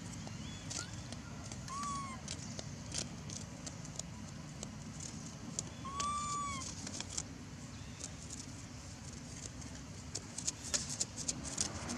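Two short animal calls, each note rising then falling, about four seconds apart, over outdoor ambience with scattered clicks that come thicker near the end.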